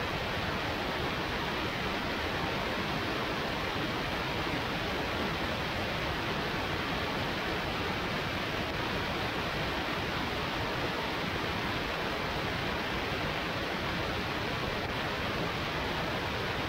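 Steady rush of wind over the microphone of a camera mounted outside a Flight Design CTSW light-sport aircraft in cruise flight.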